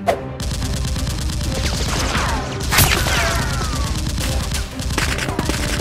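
Rapid, continuous gunfire sound effects dubbed over a toy-blaster shootout, a dense volley of shots with a louder shot about three seconds in and a few falling whines around it, over background music.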